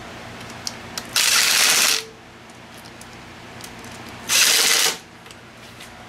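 The mounting fasteners on the motor mount are being tightened: a few light clicks, then two short, loud bursts of mechanical noise, about a second in and about four seconds in.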